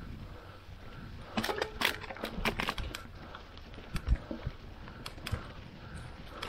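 A quick run of sharp clicks and knocks about a second and a half in, lasting around a second and a half, then a few single knocks a little later.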